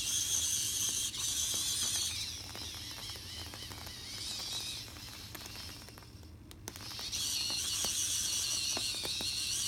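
Small electric drive of a 3D-printed model tank running: a high whine with a ticking, ratchety plastic clatter from its gears and tracks. It fades after a couple of seconds, nearly stops around six seconds in, then starts up again.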